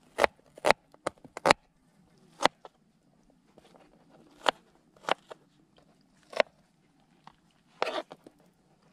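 Kitchen knife chopping onion on a plastic cutting board: about a dozen sharp, crunchy strikes at an uneven pace.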